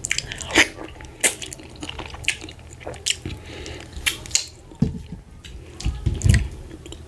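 Close-miked wet eating sounds from a mouthful of oatmeal fufu with slimy ogbono soup: irregular sticky smacks and wet clicks, a few every second, with a couple of duller low thuds near the end.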